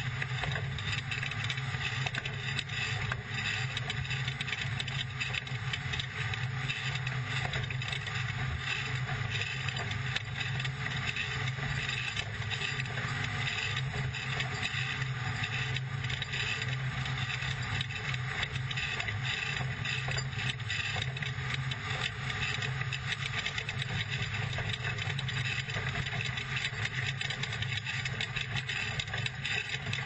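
Off-road desert race truck driving at speed on a dirt track, heard from inside the cab: the engine runs steadily with an even pitch under a constant wash of tyre, gravel and chassis noise.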